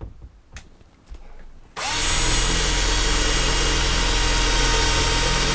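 Cordless drill drilling a new screw hole into the RV ceiling. After a few light handling clicks, the drill starts about two seconds in and runs steadily at full speed for about four seconds.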